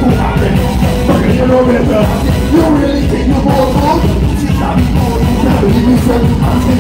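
Loud soca music over a PA system, with a man singing live into a microphone over the track.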